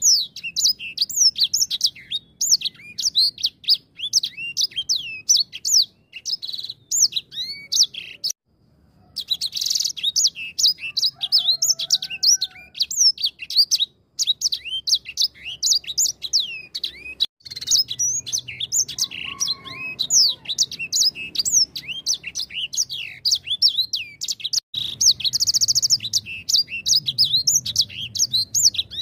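Caged sanger finch in full song: a long, fast, high-pitched twittering of rapid sweeping chirps, broken by a short pause about eight seconds in. This is the kind of non-stop song used as a lure recording to set other birds singing.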